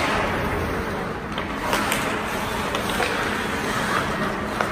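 Ice hockey play: a steady scrape and hiss of skates on the ice, broken by a few sharp clacks of sticks and puck.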